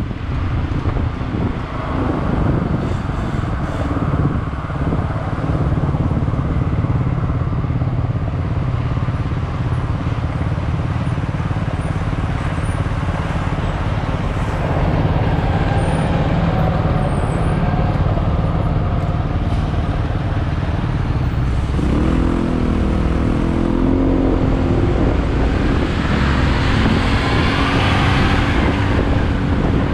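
Motorcycle running along in traffic, engine rumble mixed with wind rushing over the microphone. About two-thirds of the way through the engine note changes and its pitch shifts.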